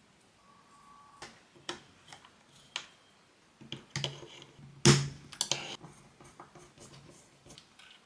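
Irregular small clicks and taps of hard parts being handled, with one sharper click about five seconds in.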